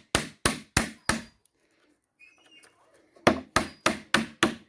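Hammer blows driving a wooden wedge into the gap between a pallet plank and its block, forcing the nailed plank apart. The blows come steadily, about three a second, stop for nearly two seconds about a second and a half in, then start again.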